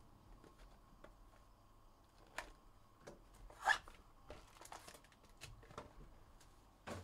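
Faint handling noise of trading cards and pack wrappers: a few short scratchy rustles and clicks, the loudest about halfway through.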